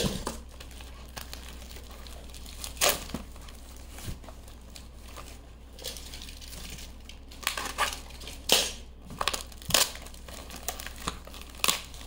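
Packaging crinkling and rustling in the hands, with some tearing, as a product is unwrapped. It comes in short, irregular bursts, the loudest about three seconds and eight and a half seconds in.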